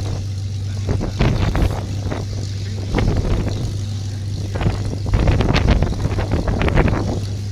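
Hawker Hurricane's Rolls-Royce Merlin V12 engine being started, running with a steady low drone and irregular clusters of sharp pops and crackles as it fires unevenly.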